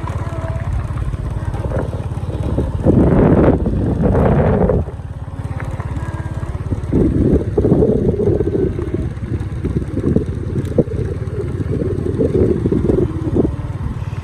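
An engine running steadily, with louder stretches about three seconds in and again from about seven seconds in.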